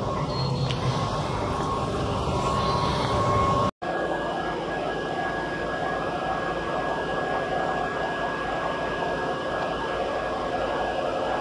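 Steady running drone of workshop machinery. About four seconds in there is a brief dropout, and after it a thin steady high whine sits over the drone.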